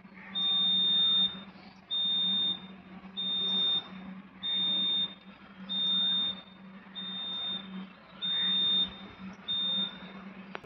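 Electronic warning beeper sounding a repeated high-pitched beep, eight beeps about one every 1.3 seconds, over a steady low hum from the WAG-9 electric locomotive standing with its pantographs lowered. It comes just before the rear pantograph is raised to power up the locomotive.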